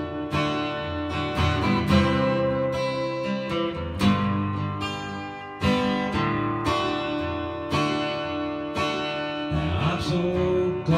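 Acoustic guitar strummed, chords ringing in a steady rhythm.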